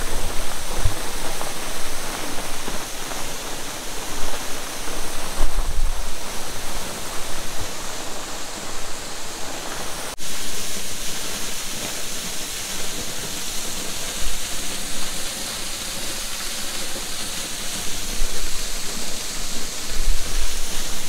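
Waterfall: a thin fall of water dropping from a rock overhang and splashing into a pool, a steady rushing hiss.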